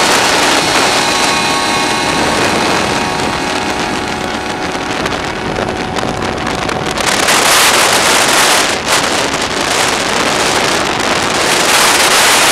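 Loud wind rushing over the microphone of a moving vehicle, a steady roar with faint steady tones underneath that grows louder about seven seconds in.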